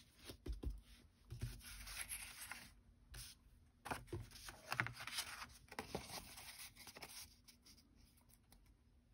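Sheets of patterned paper and cardstock being handled and slid about on a cutting mat: faint rustling in short bursts with a few light taps, dying down near the end.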